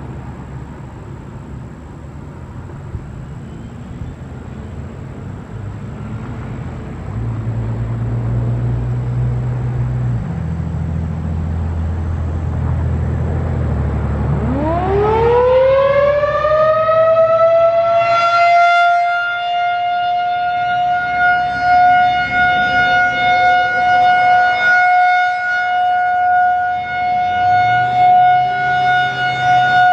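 Federal Signal 2001-SRN rotating mechanical outdoor warning siren sounding a test alert. After a low rumble, it winds up about halfway in from a low growl to a steady high wail. The wail swells and fades as the rotating head turns.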